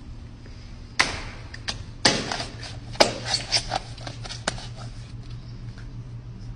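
A hand tapping and patting on a plastic braille wall sign: a run of irregular sharp taps starting about a second in, thickest between two and four seconds, then dying away, over a faint steady room hum.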